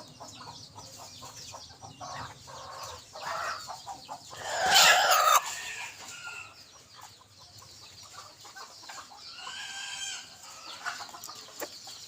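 A junglefowl rooster kept as a decoy crowing once loudly about five seconds in, with scattered short clucks and a fainter call near the ten-second mark.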